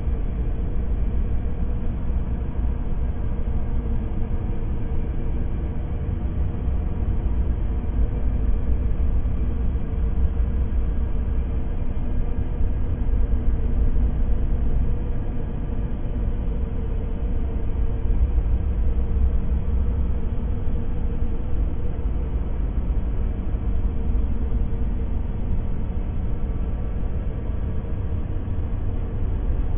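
Empty-room ambience: a steady, low rumbling room tone with a faint constant hum above it, unchanging throughout.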